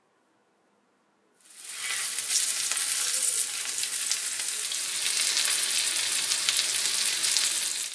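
Floured salmon fillets sizzling and crackling as they fry in hot fat in a frying pan. The sizzle starts suddenly about a second and a half in and cuts off sharply at the end.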